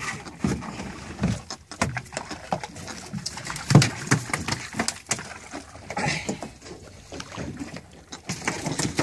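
Irregular knocks and thumps on a fishing boat's deck as freshly caught fish are handled and dropped aboard, the loudest thump about four seconds in.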